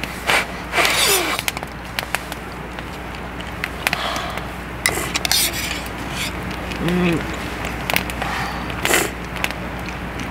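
Light clinks and scrapes of spoons against a metal pot and a cup during a meal, with a few sharp clicks scattered through. A brief "un" is spoken about seven seconds in.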